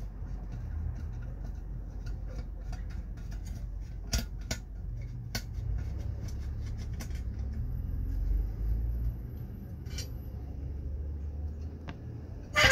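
Scattered light metallic clinks and taps, a few sharper knocks among them, from handling a steel Humvee X-door window frame and its screws, over a steady low hum. A cluster of knocks at the end is the loudest.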